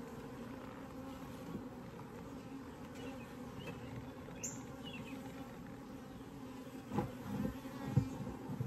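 Honeybees buzzing in a steady hum over an open Layens horizontal hive. A few dull thumps come near the end.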